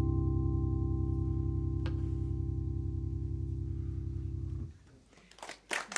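The last notes of a song: a hammered dulcimer struck with a mallet, two single notes ringing out over a sustained low drone. The drone stops short about three quarters of the way in, and after a brief hush audience applause starts near the end.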